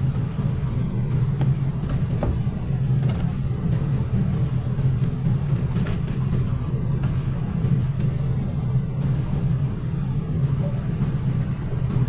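Steady low rumble, like a machine or motor running, with a few faint clicks.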